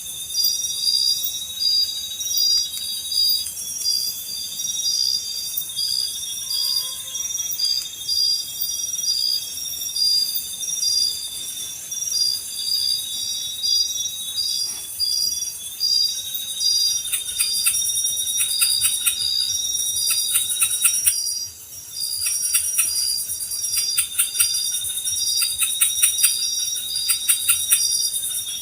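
Tropical insect chorus: high chirps pulsing about two to three times a second over a continuous high-pitched whine. From about two-thirds of the way in, bouts of fast rattling clicks join in.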